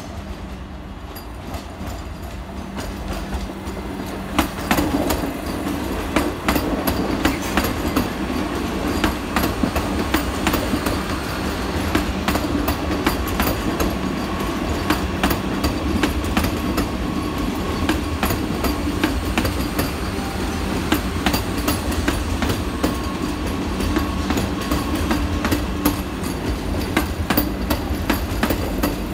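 Vande Bharat Express electric multiple-unit train passing close by, its wheels clicking rapidly and steadily over the rail joints over a continuous rumble and a steady hum. The clatter grows louder about four seconds in and stays up as the coaches stream past.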